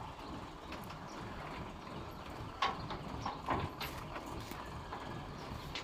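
A steady low mechanical rumble with a few sharp knocks, the loudest about two and a half and three and a half seconds in.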